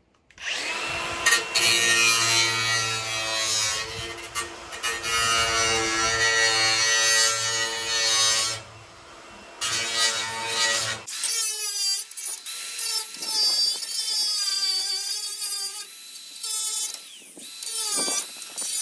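Milwaukee angle grinder running and grinding the rough cut edges of a truck grille, starting about half a second in. About two-thirds of the way through the deep motor tone drops away and a higher, wavering whine goes on as the disc works the edges.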